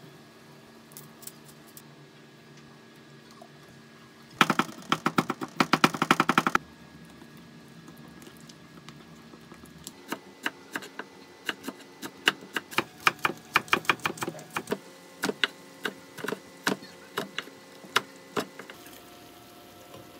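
A spoon clatters briskly in a small bowl for about two seconds while chili seasoning is mixed. Later comes a steady run of knife chops on a wooden cutting board, two to three a second, as a green onion is sliced.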